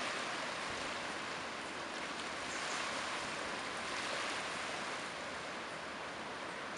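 Steady hiss of surf washing on a sandy beach, swelling slightly a couple of times.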